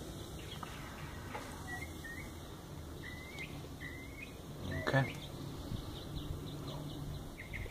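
Birds chirping now and then in short, falling chirps over a faint steady low hum, with one sharper, louder sound about five seconds in.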